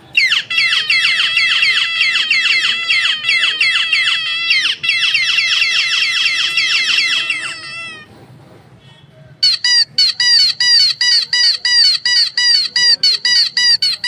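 Dog squeaky toys squeezed over and over. First a fast run of squeaks, about four or five a second, each sliding down in pitch, lasting about seven seconds with a brief break midway. After a short pause a second toy gives shorter, higher squeaks, about three a second.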